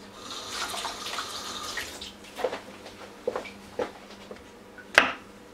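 Kitchen tap running for about two seconds as a mushroom is rinsed under it, then a few light knocks and one sharp knock near the end.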